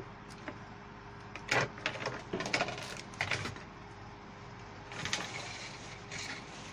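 Plastic wrapping crinkling and rustling as it is folded and handled around a bouquet, in a cluster of bursts from about a second and a half in and again around five seconds, over a faint steady hum.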